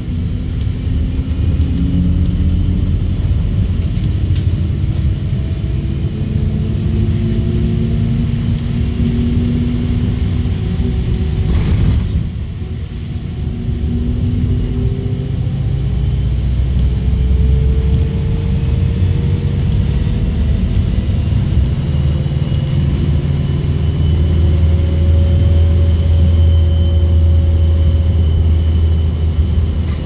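ADL Enviro200 MMC single-deck bus driving, heard from inside the passenger saloon: steady engine and road rumble with several drivetrain whines gliding slowly up and down in pitch. A high whistle comes in near the start and again in the second half, and the level dips briefly about twelve seconds in.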